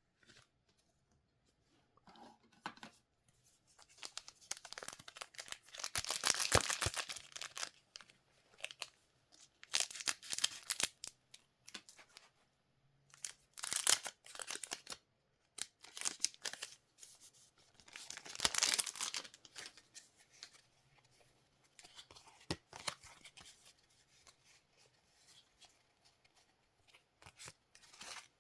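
Trading-card pack wrappers being torn open and crinkled by hand, in a series of separate rustling bursts.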